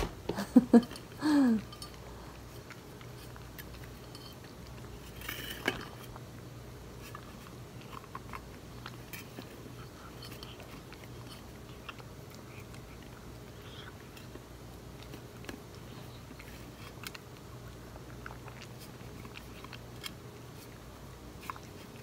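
A cat chewing soft, moist chicken cat food from a stainless-steel bowl: faint, irregular wet clicks and smacks, with occasional light knocks against the bowl. A few short, louder sounds come in the first two seconds, one of them falling in pitch.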